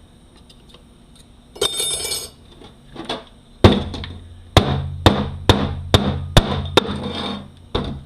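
Metal transmission parts handled on a workbench: a short rattle, then a run of sharp knocks about two a second over a low hum.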